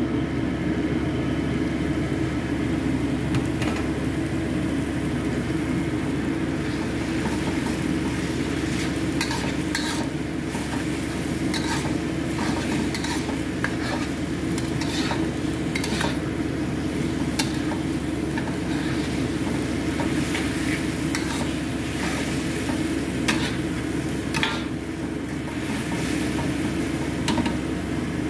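Wet noodles sizzling as a metal spatula stirs and tosses them in a wok, with irregular scrapes and clicks of the spatula against the pan. A steady low hum runs underneath.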